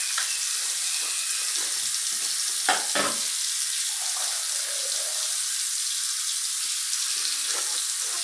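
Steady hiss of a bathroom tap running, with mouthwash being swished and gargled in the mouth, including a short louder gurgle about three seconds in.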